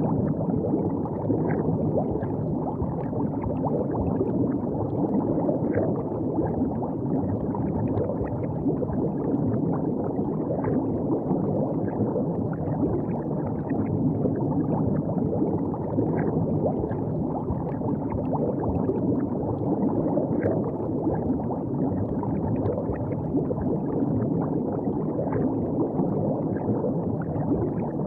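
River water flowing and gurgling steadily, with many small light splashes.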